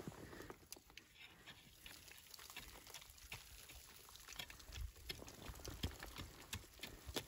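Faint scratching and small scattered clicks of a long-handled three-prong garden cultivator raking into the dry dirt of an uprooted tree's root ball, with a soft low thump about five seconds in.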